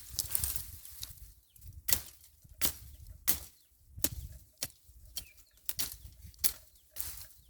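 Weeds being cut by hand with a bladed tool, a quick swishing cut about every two-thirds of a second, in a steady working rhythm.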